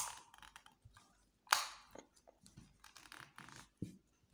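Plastic casing of an Intex wireless microphone being worked open by hand: a sharp click at the start and a louder snap about a second and a half in, then small clicks and scraping, with one more click near the end.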